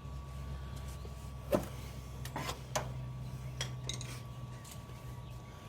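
A few light clicks and knocks as spark plug wires are handled and pushed onto their terminals, over a steady low hum.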